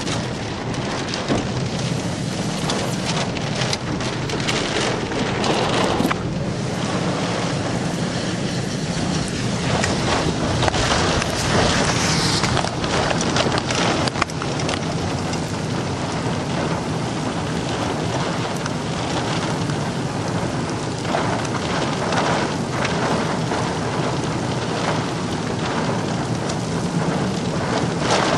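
Heavy rain falling in a thunderstorm, a dense, steady patter of drops.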